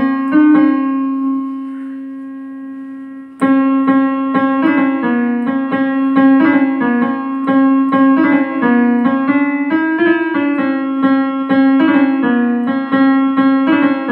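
Yamaha portable keyboard played with a piano voice: a held note fades away, then about three and a half seconds in a quick run of repeated notes starts, about three a second, and carries on steadily.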